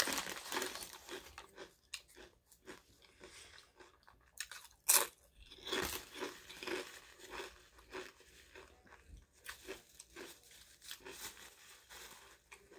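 Close-up chewing of crunchy jalapeño chips: a steady rhythm of wet crunches, about two a second, with one louder crunch about five seconds in.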